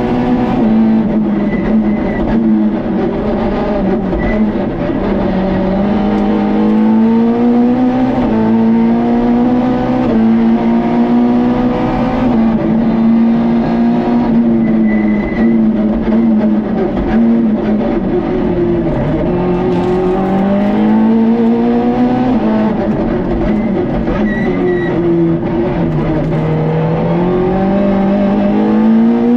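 Peugeot 106 rally car's four-cylinder engine at stage pace, heard from inside the cockpit. The engine note climbs and drops again and again as the car is accelerated through the gears and lifted off for corners. A few brief high chirps cut through the engine.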